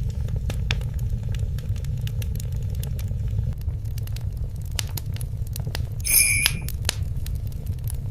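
Fireplace fire crackling: a steady low rumble of flames with many sharp, irregular crackles and pops. About six seconds in, a brief high ringing sound stands out for about half a second.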